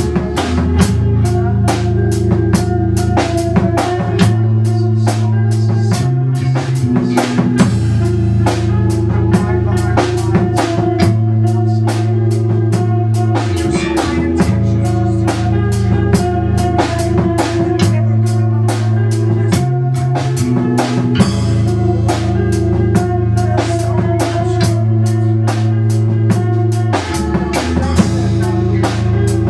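Music: a drum kit keeping a fast, steady beat over a bass line of held low notes that shift every couple of seconds in a repeating pattern.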